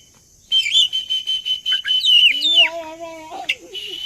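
Oriental magpie-robin (kacer) singing: after a short gap it starts about half a second in with long high whistles and quick chattering notes. About two and a half seconds in comes a lower, wavering call lasting about a second, and then the high whistling resumes.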